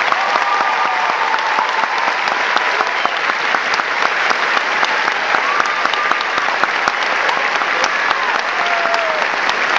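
A large audience applauding, loud and steady.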